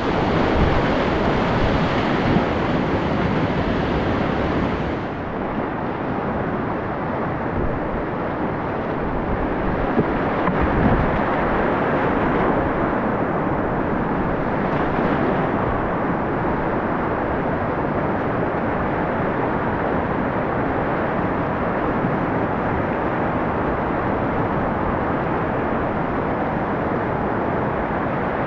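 Whitewater river rapids rushing, heard from a kayak on the water as a steady, even noise. About five seconds in, the highest hiss falls away.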